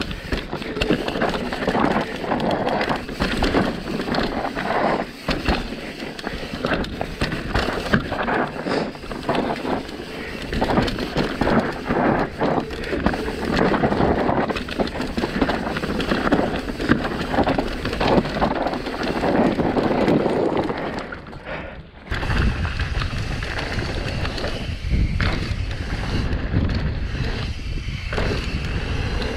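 Mountain bike descending a dirt trail, with tyres on loose ground, the bike rattling over bumps and wind buffeting the helmet-camera microphone. About twenty seconds in the sound breaks off and a steadier low rumble takes over.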